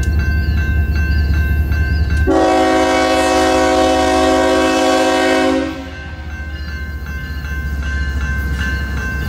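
BNSF diesel locomotive approaching with a heavy low engine rumble. About two seconds in it sounds its air horn in one long blast of several notes together, lasting about three seconds and cutting off sharply. After the blast the train's rumble carries on more quietly.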